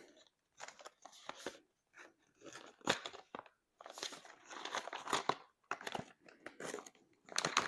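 Packaging being handled: plastic and paper crinkling and rustling in irregular bursts, with a few sharp clicks.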